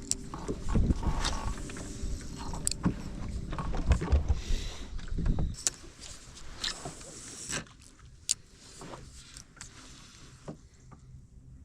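Knocks, clicks and clatter of gear being handled in a small fishing boat, over a low rumble for about the first five seconds. After that it drops to scattered, quieter clicks.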